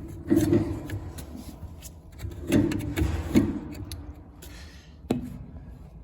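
Scrapes, rubs and irregular knocks of dryer parts being handled inside the opened, unplugged cabinet as the drum and belt area are worked loose, with a sharp knock about five seconds in.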